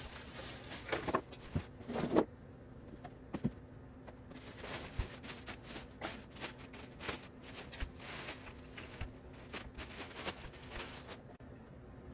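Plastic wrap crinkling and rustling as a walking-pad treadmill is handled and unwrapped, with a few knocks from the machine being set down in the first couple of seconds.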